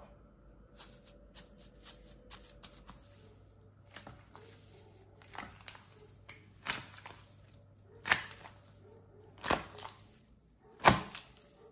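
White slime covered in gold leaf being stretched and pulled apart by hand: soft, irregular crackles and sticky pops, with a few louder ones near the end.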